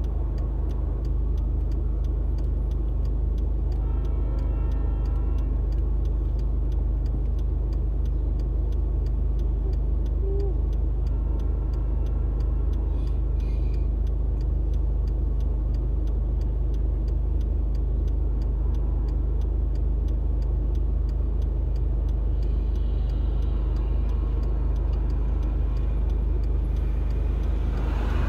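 Steady low hum of a car idling at a standstill, with a faint ticking that repeats evenly about three times a second. Near the end another car drives through.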